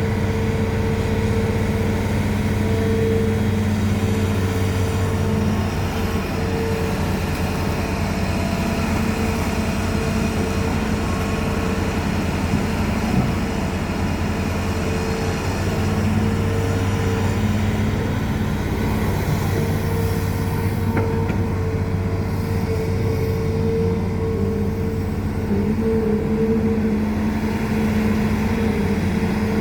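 Hitachi Zaxis 210F hydraulic excavator's diesel engine running steadily while it digs. The engine note sags under load in the middle and picks back up near the end.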